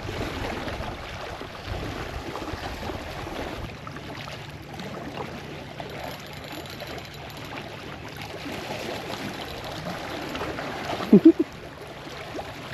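Seawater sloshing and trickling with a steady wash. A faint low hum runs through the middle, and a short voice sounds near the end.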